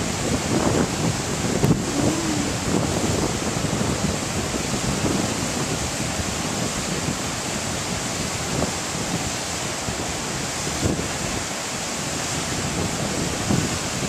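Steady rush of water pouring over rocky cascades, mixed with wind buffeting the microphone.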